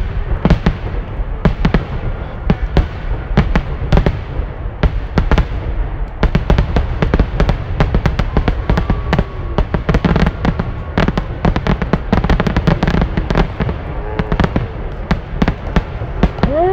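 Fireworks display: aerial shells bursting overhead in a rapid series of sharp bangs, growing denser into a near-continuous barrage about six seconds in.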